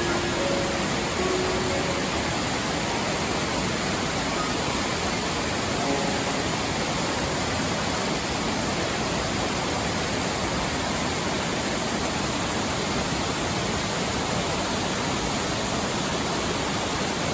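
Waterfall rushing, an even and unbroken roar of water. A few soft held music notes fade out in the first second or so.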